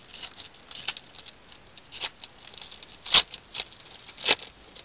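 A baseball card pack's wrapper being torn open and the cards handled: irregular crinkling and crackling, with three sharper crackles about two, three and four seconds in.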